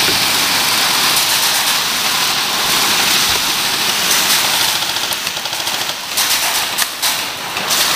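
Airsoft electric guns firing on full auto, a dense rattle of rapid shots that breaks into shorter bursts in the last couple of seconds.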